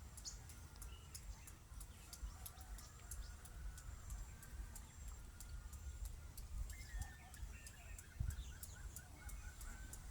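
Birds chirping and calling, with a quick run of repeated short notes in the last few seconds, over a low rumble.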